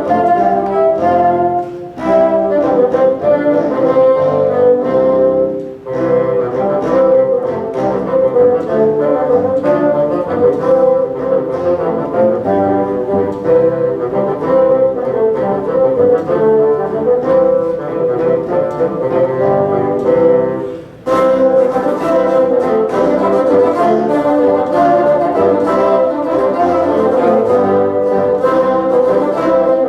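A bassoon ensemble playing a piece together, several parts in harmony, with brief pauses between phrases about 2, 6 and 21 seconds in.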